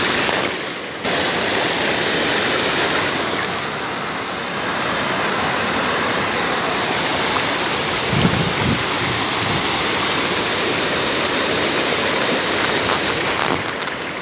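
Steady rush of flowing water, with water streaming out of a cast net as it is hauled up. A brief low thump comes about eight seconds in.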